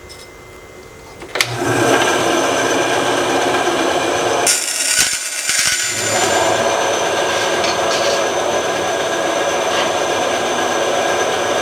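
Benchtop band saw switching on with a click about a second and a half in, then running steadily as it cuts a thin aluminum sheet along a marked line.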